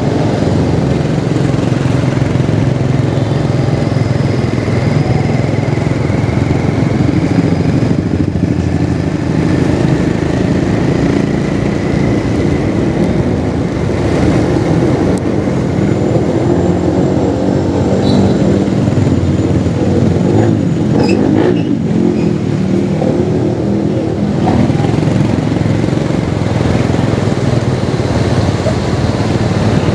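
Steady engine and road noise from a moving vehicle in traffic.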